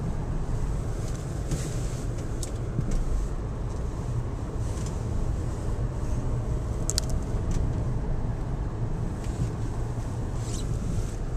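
Car being driven: steady low engine and road rumble, with a few short sharp clicks, one about two and a half seconds in and a pair about seven seconds in.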